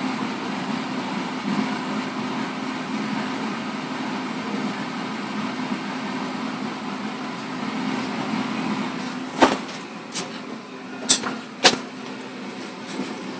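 Vintage NuTone kitchen exhaust fan running: a steady motor hum with the rush of air through its blades. From about nine seconds in, a few sharp clicks come through.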